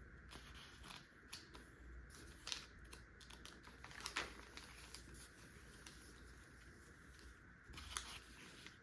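Near silence with faint, scattered taps and clicks of a paper journal being handled, a handful of them sharper, over a low steady room hum.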